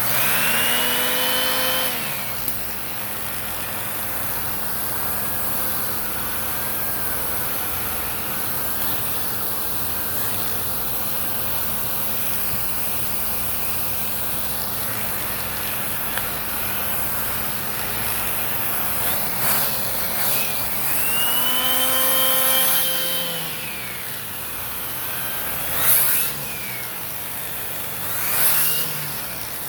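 Hoover Hushtone upright vacuum cleaner running steadily with its hose and attachment in use, giving a constant motor and suction noise. Its pitch rises, holds and falls back twice, near the start and about two-thirds of the way through. A couple of short louder surges come near the end.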